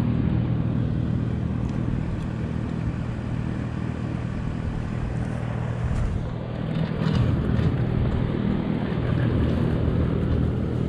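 Honda VTX1300's V-twin engine idling steadily, with a few light knocks about six to seven seconds in.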